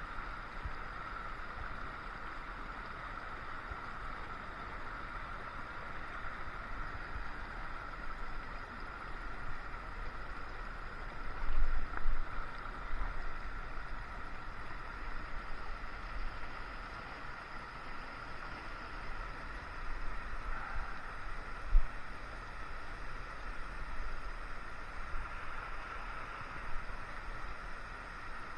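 Steady rushing of a shallow, rocky creek, with a few low bumps and buffets on the microphone, the sharpest about three-quarters of the way through.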